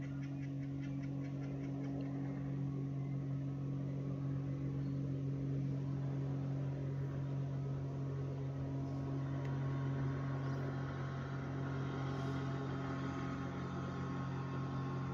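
A distant motorboat engine running steadily, heard as a low, even hum across the water.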